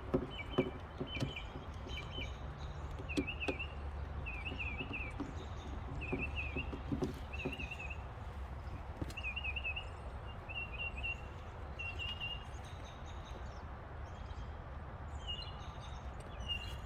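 A songbird singing short, quick trilled phrases over and over, with a steady low rumble underneath and a few light clicks in the first couple of seconds.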